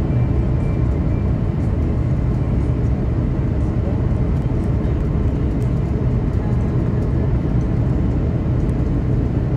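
Cabin noise of a widebody twin-engine jet airliner on approach, heard from a window seat over the wing: a steady, deep rumble of the turbofan engines and rushing air, with a fainter hiss above it.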